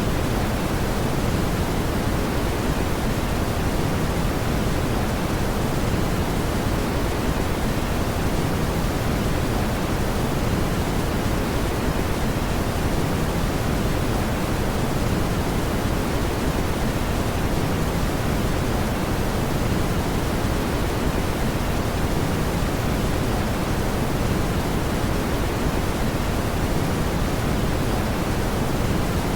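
Steady brown noise: an even, constant hiss-rumble weighted toward the low end, with no changes.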